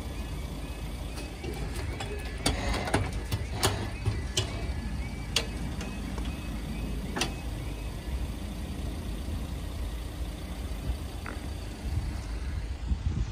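Level crossing warning alarm sounding in a rapidly repeating warble that fades out about six seconds in, over a steady low rumble of wind on the microphone, with a string of sharp clicks in the first half.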